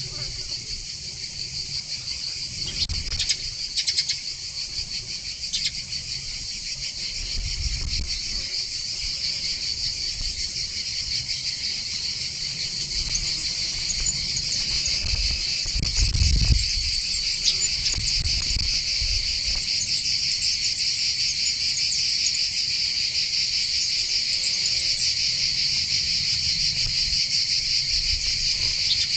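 Steady, high-pitched insect chorus that grows slightly louder, with a few low thumps; the loudest thump comes about sixteen seconds in.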